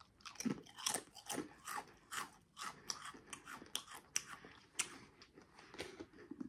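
A Pringles potato crisp being bitten and chewed, a quick run of irregular crunches that keeps going as it is chewed up.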